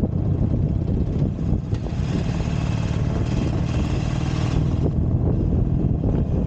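Harley-Davidson Iron 883's air-cooled V-twin engine running steadily while riding, with wind noise on the microphone. A higher hiss joins it for a couple of seconds in the middle.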